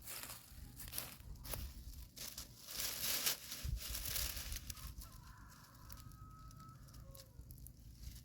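Irregular rustling and crinkling noises, loudest about three seconds in, then a faint, drawn-out animal call lasting about a second and a half, starting about five seconds in.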